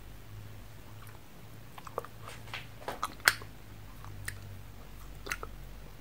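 Someone crunching a ramune-style pressed-sugar tablet candy: a handful of sharp, separate crunches, the loudest about halfway through, over a faint low hum.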